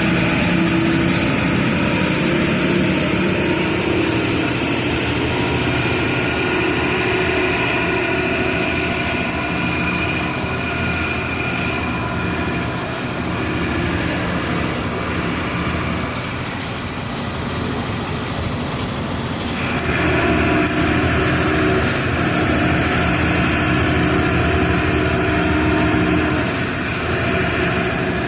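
Volksbus 17-230 EOD city bus diesel engine running as the bus drives along. The engine note eases off around the middle, then picks up again, louder, about two-thirds of the way through.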